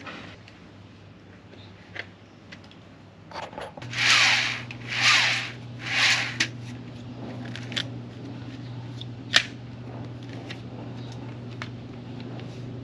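Handling noise from a Raymarine wheel pilot's drive ring and a boat steering wheel as they are fitted together. Three rasping rubs come about a second apart, then a single sharp click, with light ticks and knocks between.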